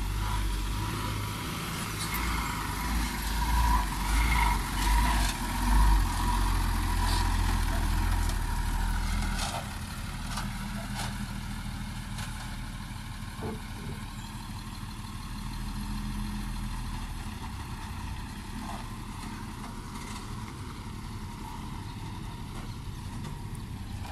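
Diesel engine of a loaded dump truck driving across rough ground. It is loud for the first nine seconds or so, then runs more quietly and steadily.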